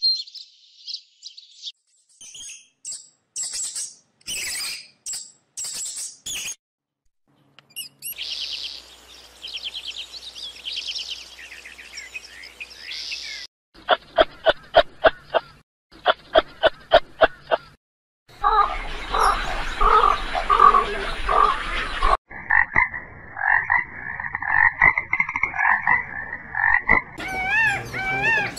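A run of short animal-call recordings, one after another with short gaps. Brief bird chirps come first, then a fast, evenly spaced croaking about halfway through, then a steady call and, near the end, wavering cat-like calls.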